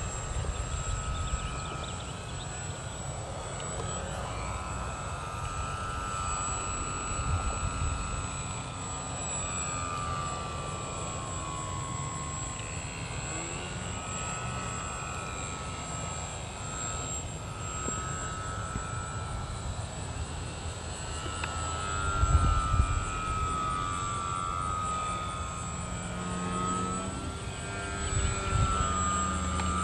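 Propeller airplane engine droning in flight, its pitch sagging and rising slowly as the plane circles.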